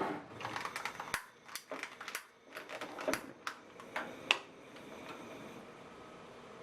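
A quick, irregular run of light clicks, taps and clatter from objects being handled, the sharpest click about four seconds in, then it stops.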